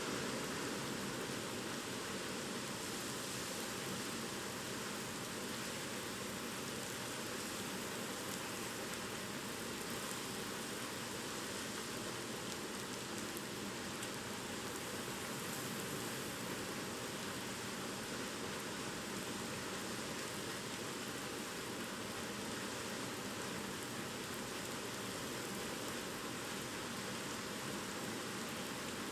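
Steady, unbroken rain and wind of a typhoon: an even rushing hiss with no separate drops or gusts standing out.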